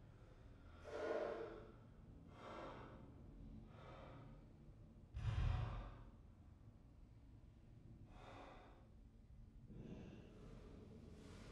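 A man breathing deeply: about six slow, sighing breaths, the loudest a little past halfway.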